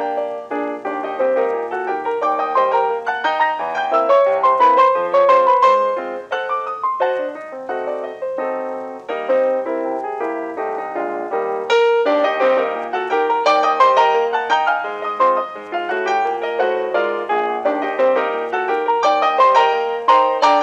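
Background piano music, a quick run of notes with chords.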